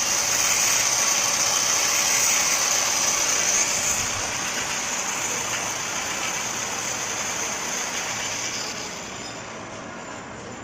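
Welding arc sizzling steadily, easing off after about four seconds and dropping lower again near the end.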